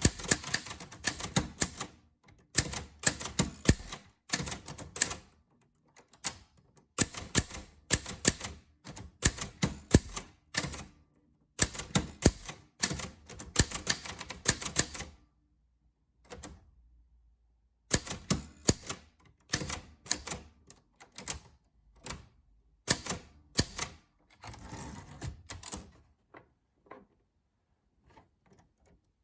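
Typewriter keys striking the paper in quick runs of sharp clacks with short pauses between them. There is a longer pause a little past halfway, and only a few isolated strokes near the end.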